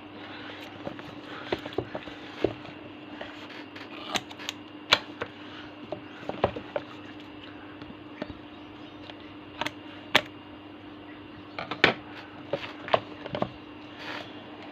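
A cardboard trading-card box being opened and its contents handled by hand: scattered clicks, taps and rustles at an uneven pace, over a steady faint hum.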